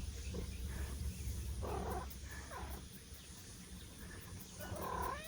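Faint cat sounds from a mother cat and her kittens, with a short rising-and-falling meow near the end, over a low steady rumble.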